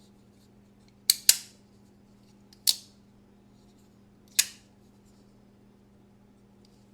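Demko AD-20.5 folding knife being worked by hand: four sharp metallic snaps with a short ring. Two come close together about a second in, another near three seconds, and a last one past four seconds.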